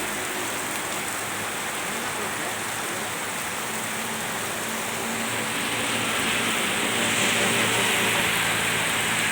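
Heavy rain pouring steadily, getting a little louder about halfway through.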